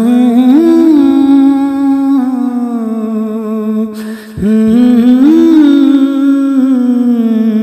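Wordless male humming of a naat melody, in two long phrases each sliding up, holding, then gliding slowly down, with a short break about four seconds in, over a steady low held note.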